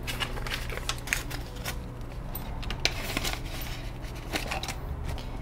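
Paper banknotes and a cash-binder envelope being handled: scattered light crinkles and clicks as the bills are tucked into the envelope, over a low steady hum.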